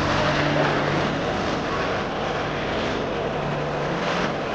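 Steady, indistinct chatter and hubbub of a boxing crowd.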